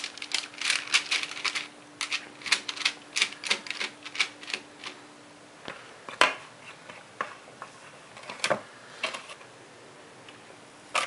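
A metal spoon and a plastic scoop clicking and scraping against a plastic mixing bowl as cookie dough is scooped out. There is a quick run of light clicks for the first few seconds, then a few scattered, louder taps.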